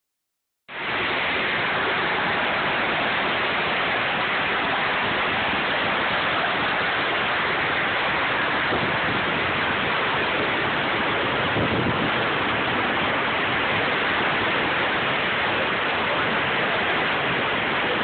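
Waterfall pouring steadily: a loud, even rush of falling water with no change throughout.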